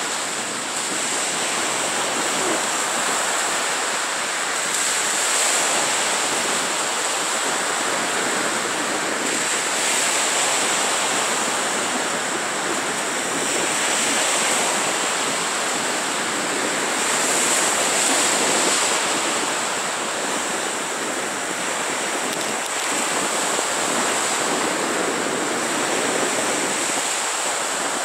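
Small Gulf of Mexico surf breaking and washing up a sandy beach, a steady rush that swells every four seconds or so as each wave breaks.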